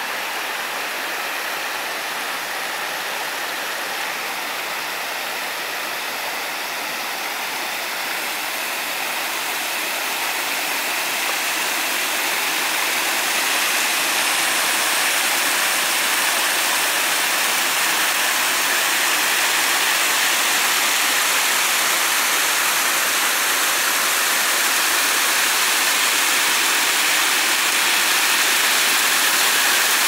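Shallow stream water running and splashing over stones, a steady rush that grows louder partway through.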